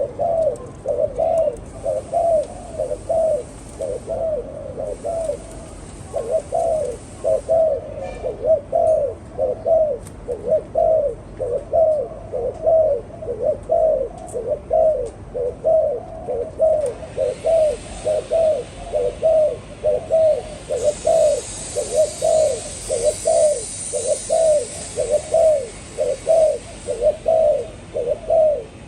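Spotted dove cooing over and over in a steady run of short, low coo phrases.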